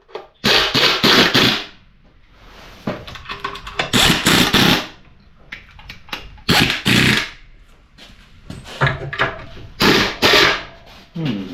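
A power tool driving bolts: four bursts of rapid rattling hits, each about one to two seconds long, with short pauses between them.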